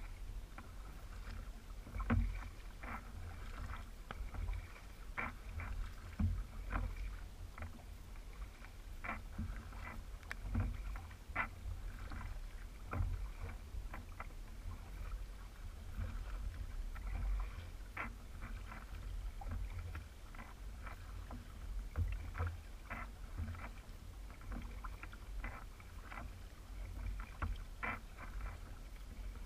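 Kayak paddle strokes on a Hobie Revolution 16 kayak: the paddle blades dip and splash, and water drips and taps against the hull in irregular short clicks about one to two a second, over a steady low rumble.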